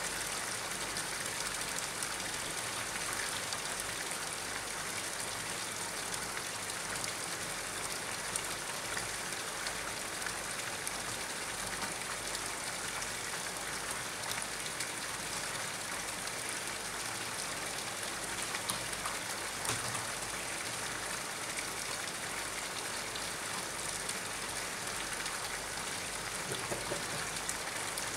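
Steady hiss and patter of water falling onto a pond's surface, with small scattered splashes and no change throughout.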